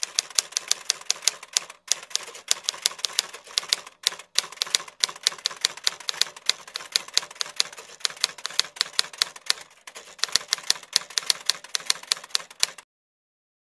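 Typewriter keystroke sound effect: a fast run of key clicks, about five or six a second, with a few brief pauses, stopping about a second before the end.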